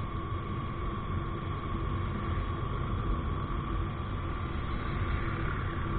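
Motorcycle cruising at a steady speed: a constant rush of wind and road noise over the running engine, with a thin steady whine throughout.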